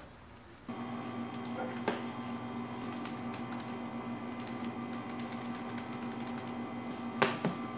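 A steady electrical hum with several fixed tones starts suddenly about a second in and holds, with a few sharp clicks, the clearest near the end.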